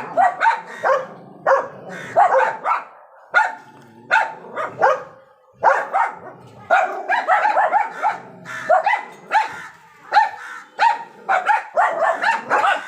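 Several dogs barking in rapid, overlapping runs, with brief lulls.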